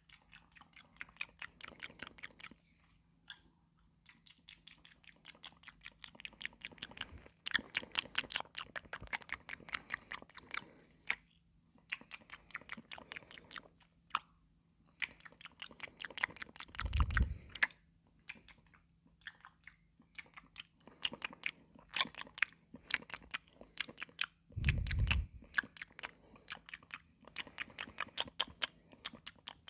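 Close-miked chewing of crunchy cucumber: rapid runs of wet crunches and mouth clicks, broken by short pauses. A low thump comes twice, about halfway through and again near the end.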